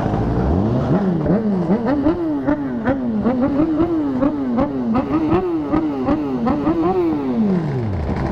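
Vehicle engine revved in quick repeated throttle blips, about two a second. The pitch climbs steeply at the start and drops away near the end as the engine is let back down.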